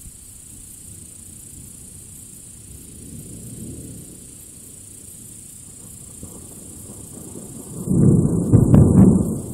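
Thunder: a faint low rumble about three seconds in, then a loud crack and rolling rumble near the end, heavy in the low end.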